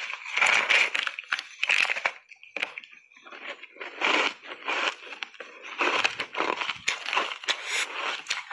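Refrozen block ice coated in matcha tea powder being bitten and chewed up close: a fast, irregular run of loud crunches and cracks, with a brief lull about three seconds in before the crunching picks up again.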